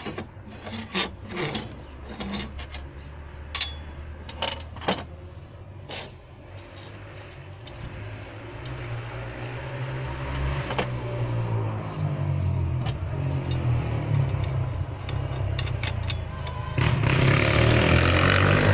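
Light clinks and taps of a sheet-steel guard being handled and set on a jointer over the first few seconds. Then a low engine hum grows steadily louder and gets fuller and louder about seventeen seconds in.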